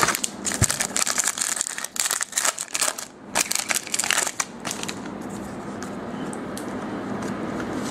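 Crinkling and rustling of a foil trading-card pack wrapper and cards being handled, in a quick run of irregular crackles that fade after about four and a half seconds into a soft hiss.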